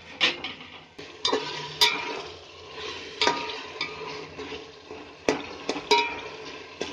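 Tomato-onion masala frying in oil in a metal pot while a steel spoon stirs it, with a steady sizzle and about seven sharp clinks and scrapes of the spoon against the pot.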